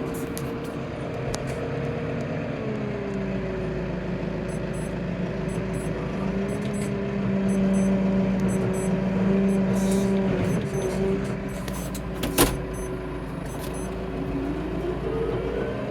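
Tractor engine running steadily while scraping a yard. Its pitch drops slightly about two and a half seconds in and rises again near the end, with one sharp knock about three-quarters of the way through.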